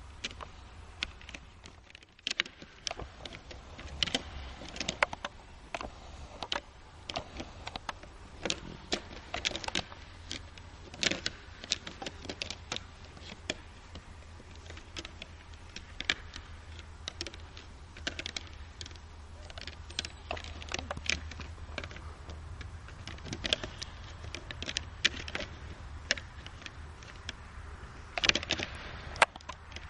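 Fallow deer bucks' antlers clashing and clattering as they lock and push in a rutting fight, many sharp irregular clicks coming in quick clusters.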